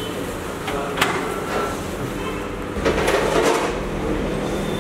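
Microwave oven door shut with a sharp click about a second in, then the microwave starts running with a low steady hum about three seconds in.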